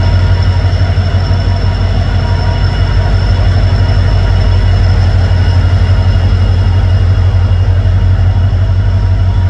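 Train locomotive engine running with a steady, loud low hum, and a faint steady high whine above it.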